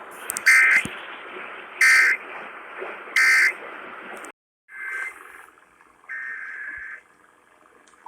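Emergency Alert System digital data bursts over radio static: three short screeching bursts about a second and a quarter apart, the end-of-message signal closing the alert. After a brief dropout come two more data bursts, the second one longer, the header of the next alert.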